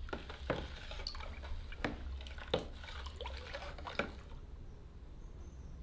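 A metal spoon stirring powder into water in a plastic tub: liquid swishing, with several sharp clinks as the spoon knocks against the tub.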